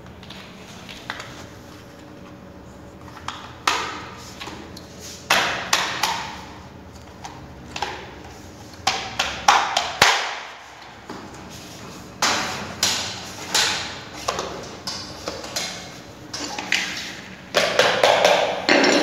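Irregular sharp knocks, taps and clicks with a short ring, as plastic cable trunking is pressed and fitted against the wall. A quick run of claw-hammer blows comes near the end.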